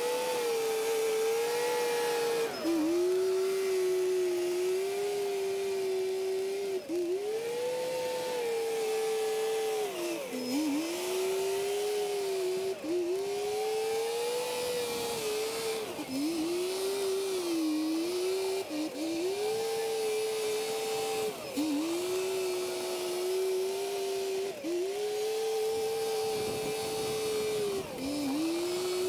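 Crawler dozer's diesel engine working under changing load, its steady whine sagging in pitch and recovering every two to three seconds as the machine pushes and backs off.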